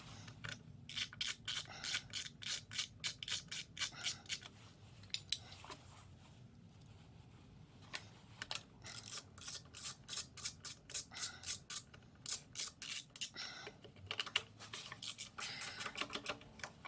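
Socket ratchet clicking as a 10 mm bolt is run down, in quick even runs of about four or five clicks a second. Three runs with short pauses between them.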